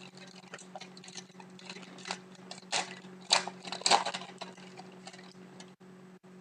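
A pack of hockey cards being opened and the cards handled: irregular crinkles and clicks of the wrapper and cards, loudest a little past the middle, dying away about a second before the end, over a faint steady hum.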